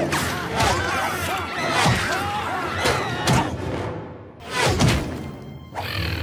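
Cartoon scuffle sound effects over background music: a string of thumps and crashes, about four hits with the loudest near the end, mixed with high wavering glides.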